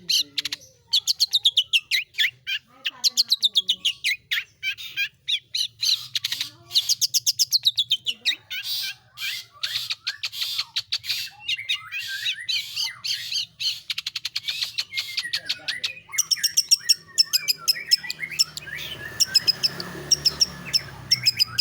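Long-tailed shrike (pentet/cendet) singing in fast rolling runs of short sharp notes with brief gaps, the 'roll tembak' style of song, its notes turning higher near the end.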